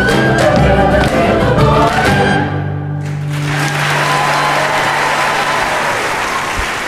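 A women's choir with instrumental accompaniment ends a Christmas carol on a final held chord. About three seconds in, the audience breaks into applause, with a low held note lingering under it until near the end.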